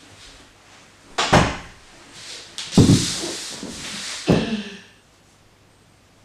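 Glass-panelled wooden interior door being opened and shut: three sharp knocks with rustling between them, the last about four seconds in.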